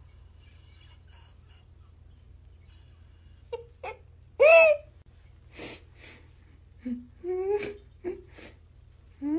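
A person laughing in short, breathy bursts and squeals, broken up by gasps, with the loudest squeal about halfway through.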